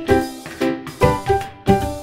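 Background music with a steady beat about twice a second and pitched notes over it.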